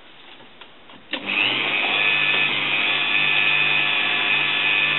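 Electric drill fitted with a polishing mop, switched on about a second in, spinning up and then running steadily with a high whine over a low hum.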